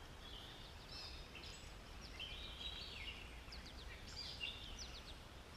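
Songbirds singing faintly: a run of short chirps and warbled phrases.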